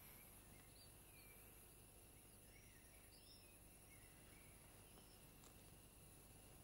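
Near silence: faint steady background hiss with a few soft, scattered bird chirps.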